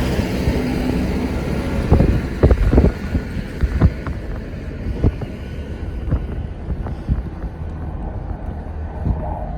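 A car driving, heard as steady low road and engine rumble. Several short low thumps come in a cluster about two to four seconds in, with a few fainter ones later.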